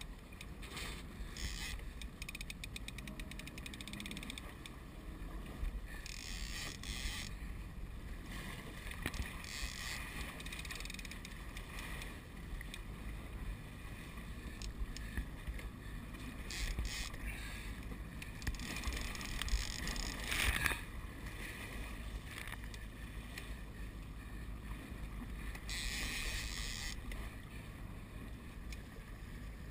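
Evinrude outboard motor running steadily with a low rumble as the boat trolls, with water splashing against the hull in short bursts now and then.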